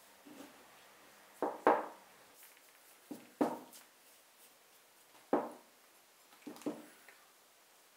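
Short wooden knocks, mostly in pairs with one single knock, as the sabre's wooden hilt is handled and set down on a wooden workbench while stain is brushed on.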